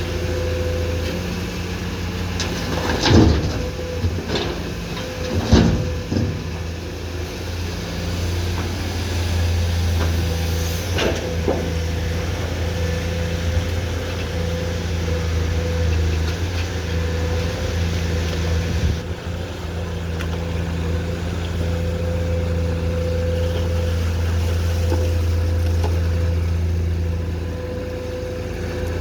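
Komatsu PC210-10M0 excavator's diesel engine running steadily as it works, with two loud knocks about three and five and a half seconds in and a lighter knock about eleven seconds in.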